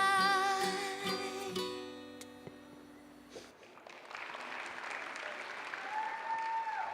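A song ends: a woman's held final sung note over strummed acoustic guitar, the last guitar chord ringing out and stopping about three and a half seconds in. Audience applause follows, with one long held cheer from the crowd near the end.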